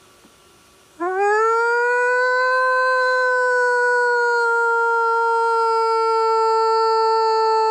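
One long howl begins about a second in, sweeping up quickly in pitch and then held nearly level and loud, one single voice.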